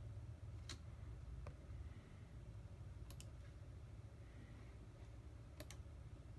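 Computer mouse clicking: a couple of single clicks, then two quick double clicks, over a low steady hum.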